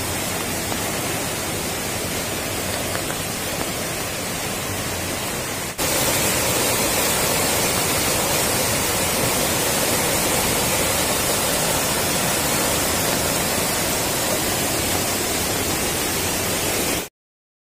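A stream in flood after two days of continuous rain, its muddy water rushing over rocks in a steady, noisy torrent. The sound gets louder about six seconds in and cuts off to silence just before the end.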